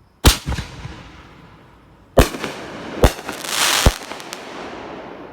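Consumer aerial mortar shell (a "triple banger"): a sharp launch report from the tube, then about two seconds later three loud bangs in quick succession, with a crackle between the last two, each trailing off in an echo.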